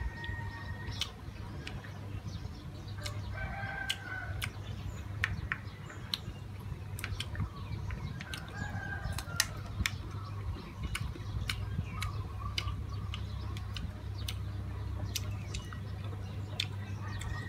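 Close-up eating sounds: irregular sharp clicks of wooden chopsticks against a plate, and chewing. Chickens call in the background, a rooster crowing among them, with a few short calls spread through.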